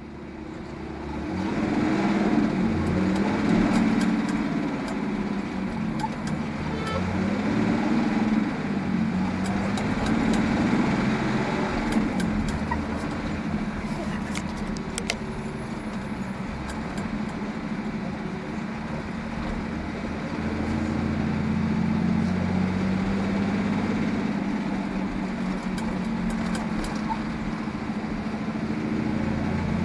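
Semi truck's engine running, heard from inside the cab along with road noise, its pitch rising and falling several times as the truck drives.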